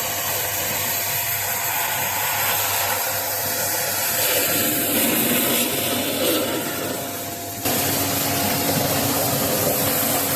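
Water jet spraying into an air-conditioner outdoor unit, washing out mud and dirt: a steady hiss that shifts abruptly about three-quarters of the way through.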